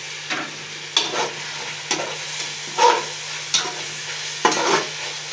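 Stir-frying vegetables and chicken in a nonstick pan: a spatula scrapes and knocks against the pan about once a second over steady sizzling, with a low steady hum underneath.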